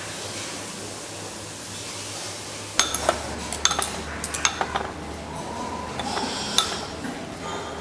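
Porcelain dishes and metal cutlery clinking: a run of sharp, short chinks with a brief ring, many in a few seconds, starting about three seconds in after a steady hiss.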